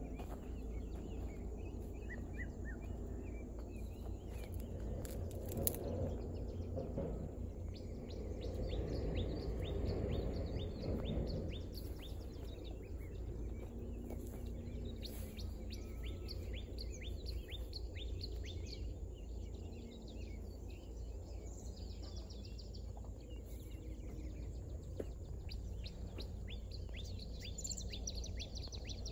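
Small birds chirping repeatedly in short quick calls, over a steady low rumble, with a single knock about six seconds in.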